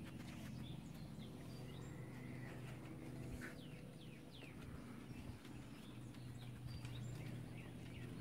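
Dogs' claws clicking and tapping on a wooden deck as puppies and adult dogs walk around, with a few faint, short high chirps in the background.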